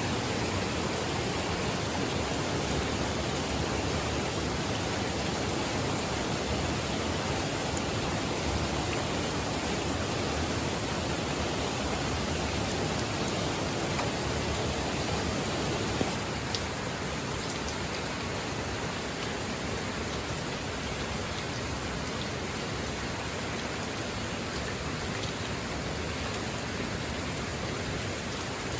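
Steady rain, an even hiss of falling water; a little past halfway it becomes slightly quieter.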